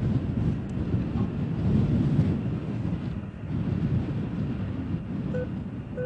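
Wind buffeting the microphone: a low, uneven rushing rumble. Near the end, a short electronic beep.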